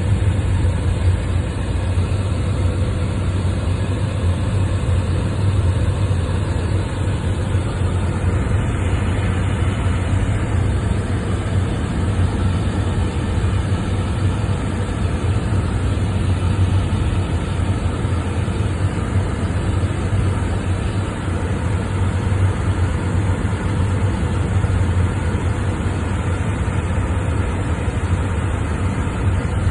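Motor vehicle engine running steadily, a low drone that holds unchanged with no revving.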